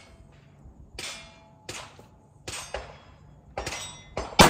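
Several quieter gunshots about a second apart, then one loud, sharp AR-15 rifle shot near the end, firing 55-grain steel-case Wolf ammunition.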